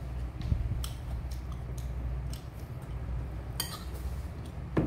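Metal spoon clicking and scraping against a ceramic bowl during eating, a few separate light clinks with the sharpest one near the end, over a steady low hum.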